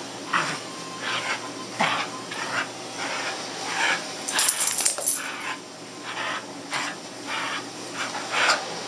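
Two dogs playing, making short dog sounds that repeat roughly every half second, with a jingle of metal collar tags about halfway through.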